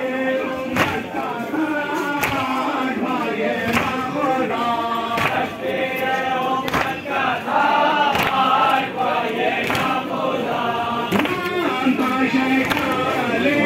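A crowd of men chanting a mourning lament together, with sharp slaps in time about every second and a half, typical of matam (rhythmic chest-beating) chanting.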